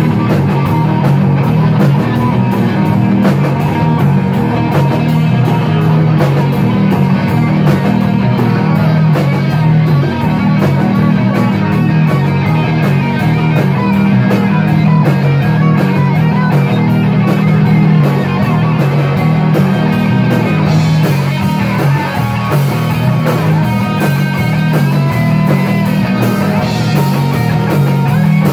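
A rock band playing loudly together: electric guitars, bass guitar and drum kit, with a steady driving beat. About two-thirds of the way through the sound grows brighter and denser.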